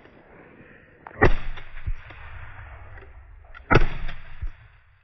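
Two 12-bore shotgun shots about two and a half seconds apart, each followed a moment later by a fainter low thump.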